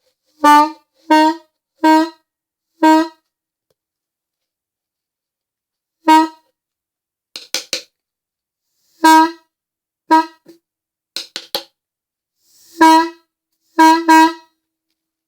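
Homemade PVC air-horn bell with new diaphragms, modelled on a Leslie 330, sounded in a string of short toots, each on one steady note: four in the first three seconds, then a pause of about three seconds, then more, some very brief. Its pitch is being tested, and the note is a little bit flat.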